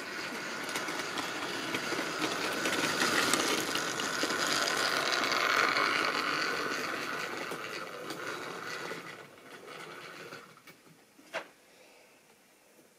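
Model railway train running on the track, whirring and clattering. It grows louder over the first few seconds, then fades away from about eight seconds in, and a single sharp click comes near the end.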